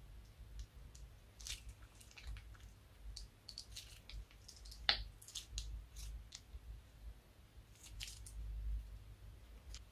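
Clear slime being squeezed out of a plastic piping bag onto other slime, making faint scattered squishes and small crackling pops, with one sharper snap about halfway through.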